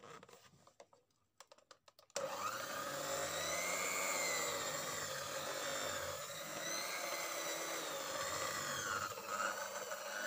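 Electric hand mixer starting about two seconds in and running steadily as its beaters whip buttercream frosting, the motor's pitch rising and falling a little as the beaters work through the mixture.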